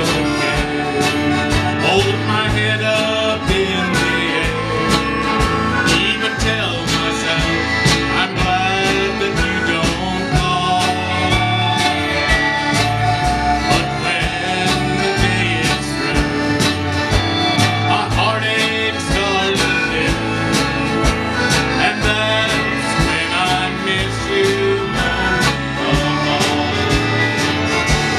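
Live country band playing at a steady beat, with accordion, acoustic guitar, mandolin, drums and upright bass through a stage PA, and a man singing lead.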